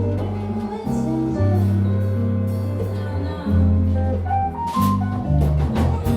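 Instrumental band music: guitar chords over a sustained bass line, with a few drum hits near the end.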